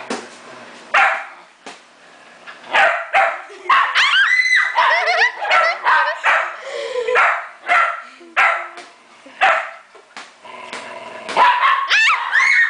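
Small white dog barking repeatedly at a beach ball, short sharp barks about once a second.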